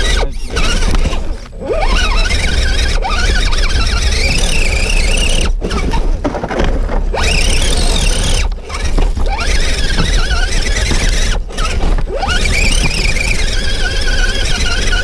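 Motor and gear whine of a 1/10-scale Axial RC crawler driving up a dirt slope, the pitch rising and falling with the throttle and cutting out briefly several times when it stops.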